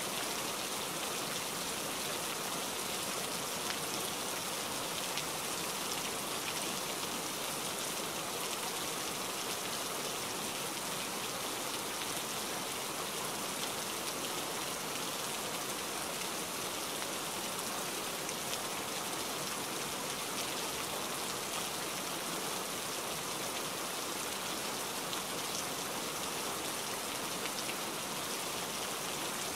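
Steady rain falling, an even hiss with faint scattered ticks of drops.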